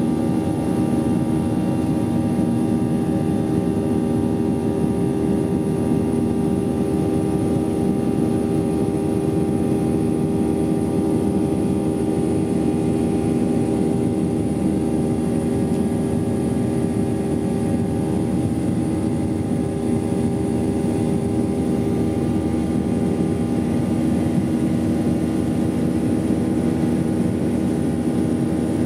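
Airliner's turbofan engines and rushing air heard from inside the passenger cabin while climbing after takeoff. It is a steady, unbroken drone with several constant hum tones and a thin high whine.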